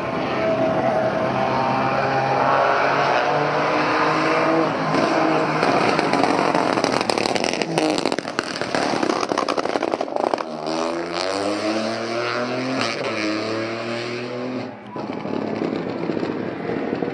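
Peugeot 208 Rally 4's turbocharged 1.2-litre three-cylinder engine at rally pace. The revs fall off the throttle over the first few seconds, then a run of sharp anti-lag crackles and pops fills the middle. About ten seconds in the revs climb again as the car accelerates, with a second shorter rise after.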